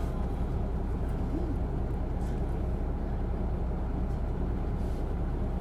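Isuzu Erga city bus with a six-speed manual gearbox, its inline-six diesel engine running steadily with an even low hum, heard from inside the cabin.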